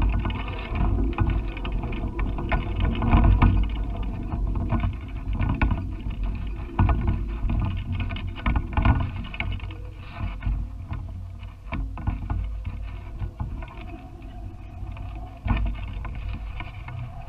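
Wind buffeting the microphone of a GoPro hung from a kite: an uneven, gusty low rumble with frequent short knocks.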